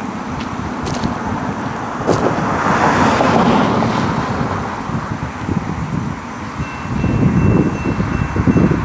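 A car drives across the railroad crossing, its noise swelling and fading about two to four seconds in, with wind buffeting the microphone. Near the end a steady high tone starts up: the crossing's NEG electronic bell beginning to ring as the signals activate for an approaching train.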